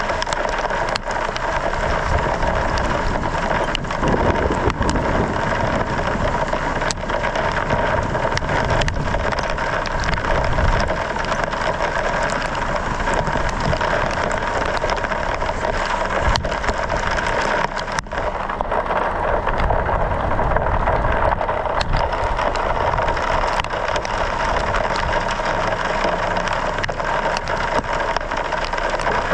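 Steady rushing noise of a vehicle out in a hailstorm, with scattered sharp ticks throughout.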